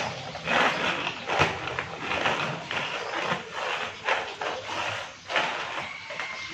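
Children's roller skate wheels rolling and scraping over rough concrete: a continuous gritty rumble broken by irregular clatters and knocks as the skates strike and push off.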